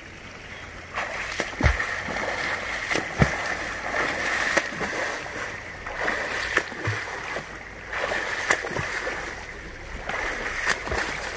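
A swimmer doing the butterfly stroke in a shallow river: arms and body slap the surface again and again, making irregular splashes over a steady wash of churned water, starting about a second in.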